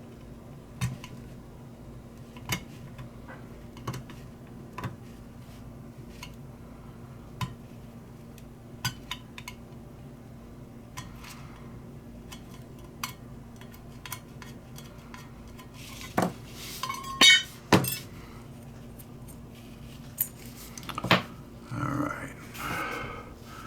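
A butane lighter being taken apart by hand: scattered light metal clicks and clinks of small parts and tools, with a louder run of knocks and clatter in the last third.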